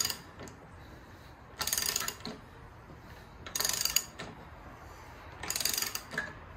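Ratchet wrench clicking in short runs about every two seconds as the handle is swung back between pulls, tightening the threaded press that draws a rear wheel bearing into a 1980 Porsche 911 SC trailing arm.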